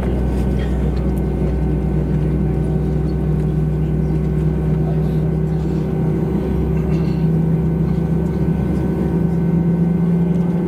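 Cabin noise inside an Airbus A320-232 as it taxis: a steady rumble and hum from its IAE V2500 engines at taxi power. The main hum edges slightly higher in pitch about halfway through.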